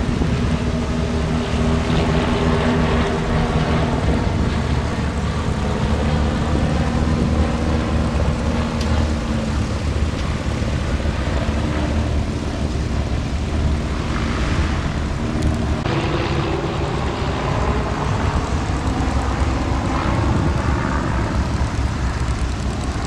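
Piston engines and propellers of a formation of three biplanes droning steadily overhead during a flypast. Several engine tones overlap and drift slightly in pitch.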